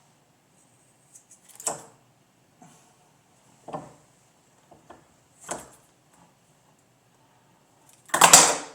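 Scissors snipping at the silk covering of silver-foil audio wire: four short separate cuts about two seconds apart, the last one loudest, near the end.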